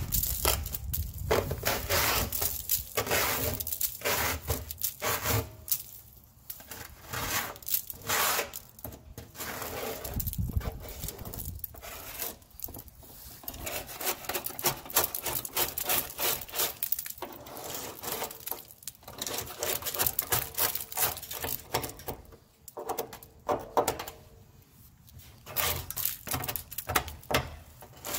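Hand scraper scraping zebra mussels off the underside of a pontoon boat's tube: repeated rasping strokes of the blade against crusted shells, in irregular runs with short pauses.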